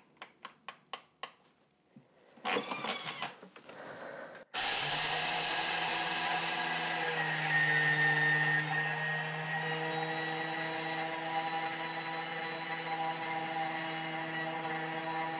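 Thermomix TM5 motor starting suddenly about four and a half seconds in and running steadily at full speed, milling spelt grains into flour, with a gritty hiss of the grains for its first couple of seconds. Before it, a run of quick clicks as the controls are set, and a brief whirr.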